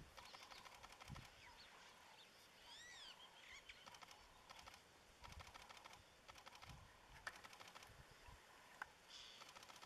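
Quiet bush ambience: repeated bursts of rapid, faint clicking, with a single rising-then-falling bird call about three seconds in.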